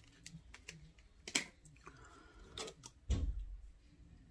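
Light clicks and taps of small objects being handled, with a sharper click about a second and a half in and a dull thump about three seconds in.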